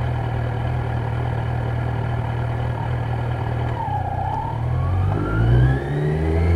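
Kawasaki Z900's inline-four engine running steadily under way, then easing off and accelerating about four seconds in, with a rising whine that climbs with the revs.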